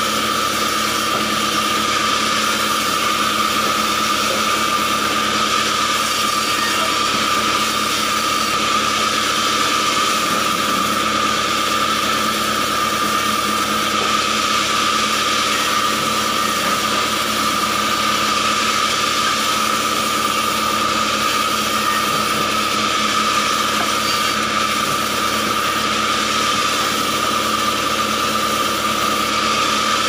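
Large sawmill band saw running steadily with a constant high whine, its blade cutting through acacia logs being fed by hand.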